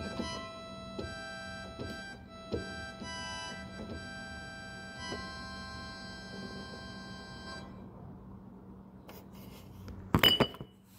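Electronic keyboard on an organ voice playing held chords, changing chord every second or so, then releasing and fading about three-quarters of the way through. A few sharp knocks and a clatter follow near the end.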